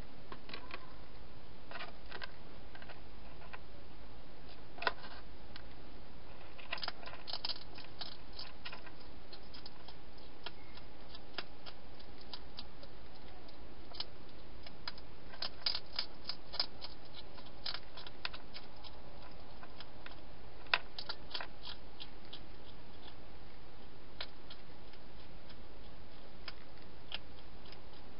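Wild hedgehog crunching dry food inside a plastic feeding station: a run of irregular sharp clicks and crunches, in clusters, over a steady background hiss.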